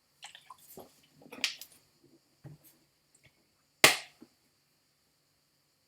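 Dishes and utensils being handled: a few light clicks and taps, then one sharp knock a little under four seconds in, like a glass being set down on a counter.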